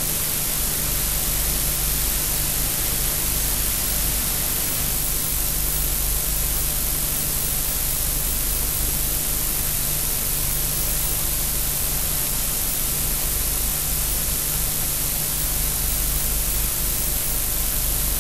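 Steady hiss with a low hum from an old film soundtrack, with no programme sound.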